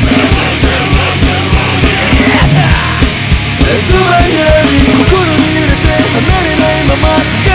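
Loud punk-style rock music with a steady, driving drum beat.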